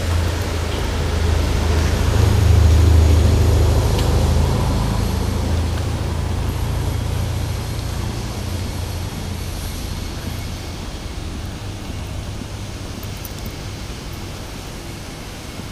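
A motor vehicle passing close by, its low engine rumble swelling to a peak about three seconds in, then slowly fading away.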